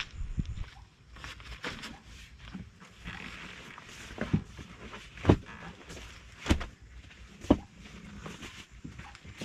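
Rustling and handling of camping gear while a bed is set up, with four dull knocks about a second apart in the second half.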